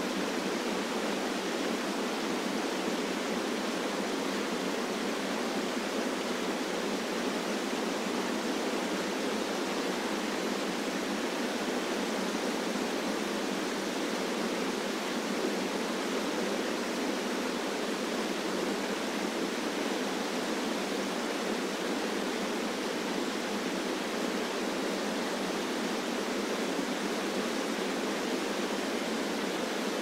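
Small river waterfalls pouring over rock ledges into pools: a steady, even rush of falling water that never changes.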